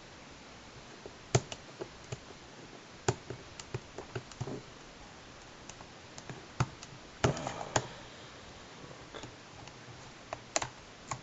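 Scattered sharp clicks and taps of a plastic Blu-ray case being handled and opened, with a short flurry of clicks and rustling about seven seconds in.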